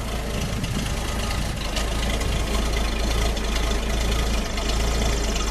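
A 1965 Rambler Marlin's factory 232 cubic-inch straight-six idling steadily, heard at the tailpipe. The exhaust note is quiet.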